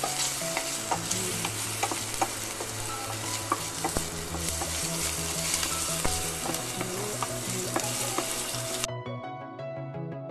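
Julienned ginger sizzling in hot oil in a stainless steel pan, stirred with a wooden spatula that clicks and scrapes against the metal. The sizzle cuts off suddenly near the end.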